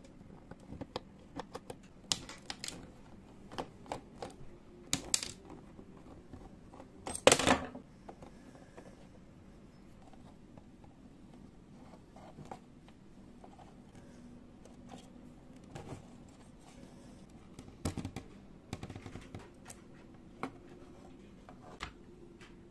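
Small screwdriver working out the screws of a metal bracket inside an opened plastic keyboard case, then the circuit board being handled: scattered light clicks, scrapes and taps of metal and plastic, with one louder clatter about seven seconds in.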